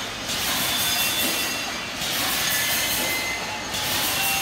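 Automatic roll-mesh welding machine running: steady mechanical noise with thin, high squealing tones. Its high hiss drops away briefly about every second and three-quarters, in a regular working cycle.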